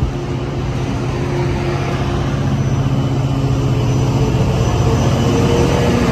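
Caltrain bilevel commuter train departing and rolling past. The steady drone of the diesel locomotive pushing at the rear grows slowly louder as it draws near.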